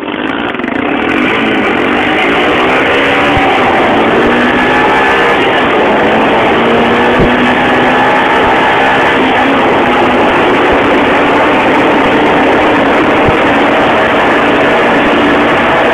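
A motor vehicle's engine running at speed, its pitch rising and falling over the first few seconds and then holding fairly steady, over a constant rushing noise.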